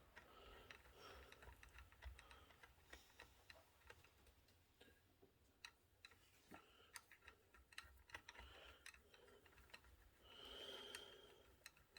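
Near silence with faint, scattered small clicks and taps, as of hands handling computer hardware, and a brief faint high whine near the end.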